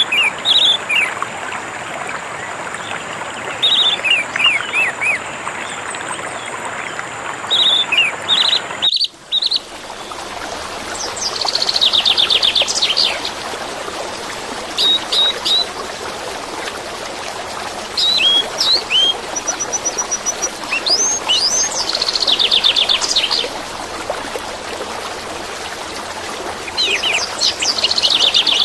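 Orange-headed thrush (anis merah) singing short whistled phrases and rapid trills over a steady rush of flowing water, with a brief dropout about nine seconds in.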